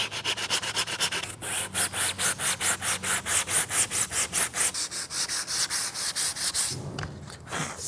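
100-grit sandpaper on a sanding block rubbed quickly back and forth over a 3D-printed ABS plastic blade, about five strokes a second, stopping near the end. The block is sanding a seam filled with melted ABS filament flush and taking off the printed layer lines.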